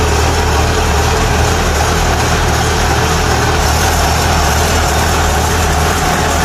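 Kubota DC-93 combine harvester's diesel engine running steadily during a test run, a loud even drone with no change in speed.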